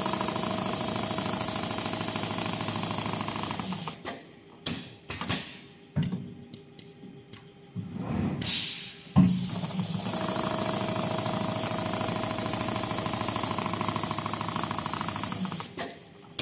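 Richpeace rotating-head computerized sewing machine stitching in two runs of several seconds, each a steady, fast needle rhythm with a high hiss. Between the runs come scattered clicks and clunks from the machine's mechanism.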